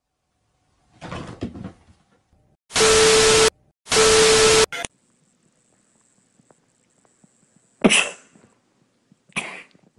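Countdown transition sound effect: two loud bursts of static, each with a steady beep, about a second apart.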